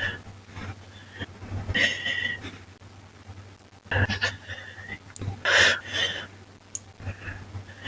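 A person breathing in slow, irregular breaths with a breathy, slightly whistling sound, the loudest about five and a half seconds in, over a steady low hum.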